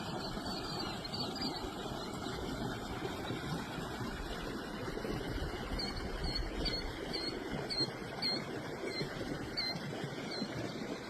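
Steady outdoor wind rushing over the microphone, with a small bird chirping about ten times, a couple of chirps a second, in the second half.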